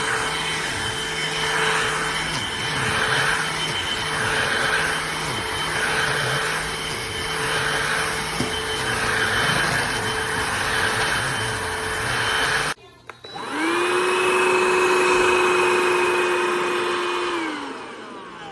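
Powools cordless handheld vacuum running with a pulsing about every second and a half, then cutting off abruptly. It restarts with a rising whine, runs steadily, and winds down with a falling whine near the end as it is switched off.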